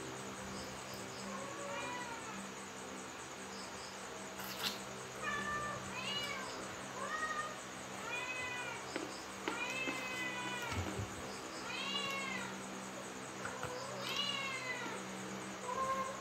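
A domestic cat meowing again and again, about eight calls each rising then falling in pitch, the longest about ten seconds in. The cat is begging for food at the table while a person eats, after being told it has already eaten. A single sharp click sounds about four and a half seconds in.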